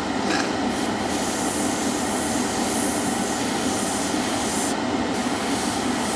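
Gravity-feed airbrush spraying Mr Color lacquer paint in fine lines: a steady hiss of air through the nozzle. The painter judges the paint still needs a little more thinning.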